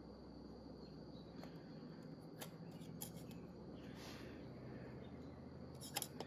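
Faint scattered clicks and light taps of a metal measuring tool against the piston ring and cylinder bore as the ring is set 2 inches down, with a slightly louder pair of clicks near the end. Under them are a low steady hum and a thin faint high tone.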